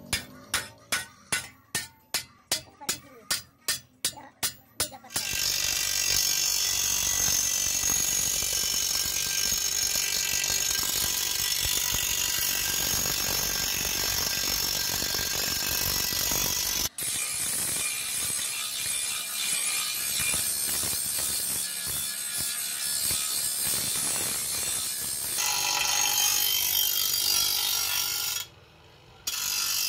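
Hammer blows on a steel plough blade resting on an anvil, about three strikes a second, stopping about five seconds in. Then a bench grinding wheel grinds the blade's steel edge in a steady, hissing grind, pausing briefly near the end.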